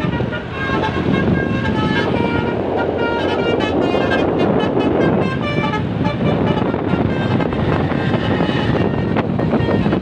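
Telolet musical horn on an SJM Trans high-deck tour bus, playing a quick run of short tooting notes at changing pitches that stops and starts. Under it run the bus's engine and passing motorcycles.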